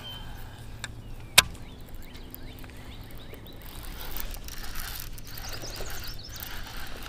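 A single sharp click from handling the fishing rod and baitcasting reel, then a hiss that rises from about four seconds in as the rod is cast and the spool pays out line.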